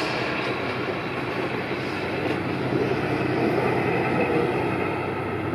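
Diesel-hauled container freight train rolling past on the rails, its last wagons going by as a steady rumble with a low steady hum underneath.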